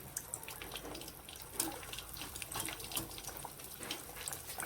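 Breaded potato pieces frying in hot oil in a pan: a steady sizzle with many sharp crackles and pops.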